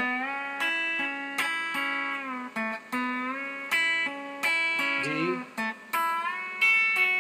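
Telecaster electric guitar played with the fingers: a melodic line of about a dozen plucked notes and double-stops, several of them bent up or let down in pitch.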